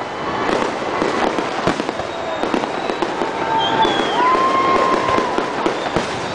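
Fireworks display going off: a dense run of bangs and crackling in quick succession, with a few whistle-like tones in the middle.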